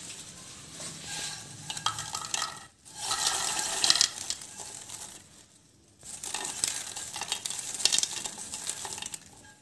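Freshly popped popcorn tumbling out of a nonstick pan into a bowl: a dry rustling and rattling with light knocks of the pan and stray kernels. It comes loudest in two pours, about three and six seconds in.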